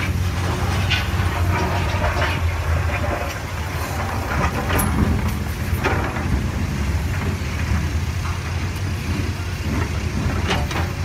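Komatsu hydraulic excavator's diesel engine running steadily under working load with a low drone, while the bucket digs and swings rock. Scattered knocks and clatter of stones come through, several times.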